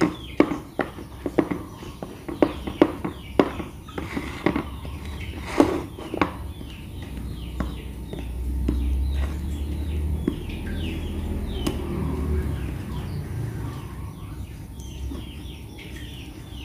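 Large spoon stirring a dry flour mixture in a glass bowl, knocking and scraping against the glass in a run of sharp clinks during the first six seconds. Birds chirp in the background, and a low rumble swells through the middle.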